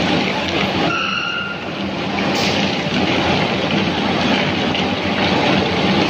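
Foundry noise during a pour of molten SG iron from a tilted induction furnace into a ladle: a loud, steady rumbling noise with a low hum underneath. About a second in, a brief high whistle sounds.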